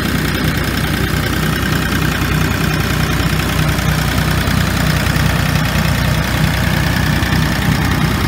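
Diesel engine of a 2018 Bobcat E35 mini excavator running steadily, heard up close in its open engine compartment.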